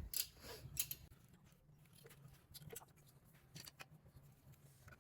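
Faint, irregular clicks and light taps of small parts being handled while the monoblock pump motor's rear cooling fan is fitted, a cluster in the first second and scattered ones after, over a faint low hum.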